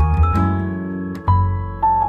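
Background music: a gentle keyboard melody, its notes changing every half second or so over held bass notes.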